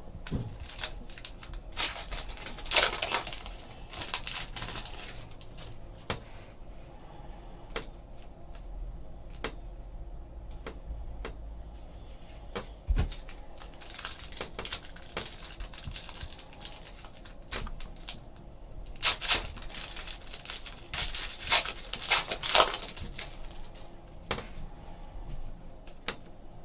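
Hands handling trading card packs and cards: wrappers rustling and cards sliding and tapping, in irregular short swishes and clicks.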